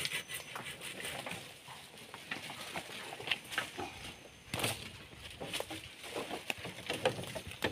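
Scattered light knocks, clacks and scrapes of cut wooden poles being handled and fitted onto a shelter frame, with a folding hand saw working on a pole.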